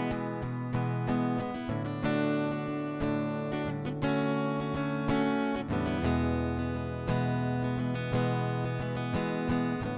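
Instrumental music: an acoustic guitar strumming chords, with a fresh strum about once a second and the chord changing a couple of times.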